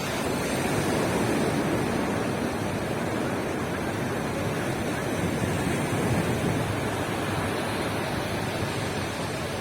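Surf breaking and washing onto a beach: a steady rush of waves that swells up at the start and carries on evenly.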